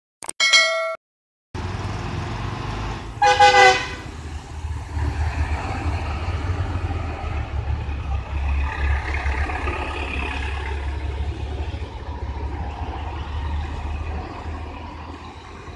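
A short chime in the first second, then traffic climbing a hill-road hairpin bend: a tourist bus and cars pass with a steady low engine rumble. A multi-tone vehicle horn honks once, briefly, about three seconds in.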